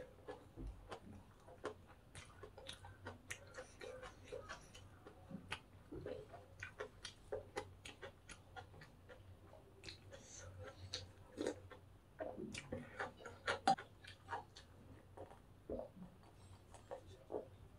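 Close-miked chewing of crunchy food: many small crunches and wet mouth clicks, a few louder ones part way through. There is a spoon clink against a glass bowl, and a sip of water-kimchi broth from the bowl near the end.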